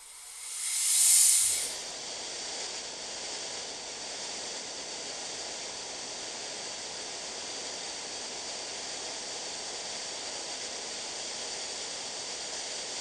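Foley hiss sound effect. A loud airy hiss swells in, peaks about a second in and drops away, then settles into a steady, even hiss.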